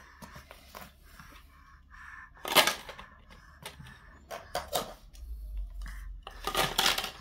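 Hard plastic rings of a baby's stacking-ring pyramid toy knocking and clacking in a few sharp knocks: a loud one about two and a half seconds in, two lighter ones a couple of seconds later, and a quick cluster near the end.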